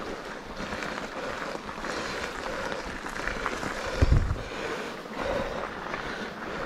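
Wind buffeting the microphone, a steady rushing noise with a heavy low thump about four seconds in.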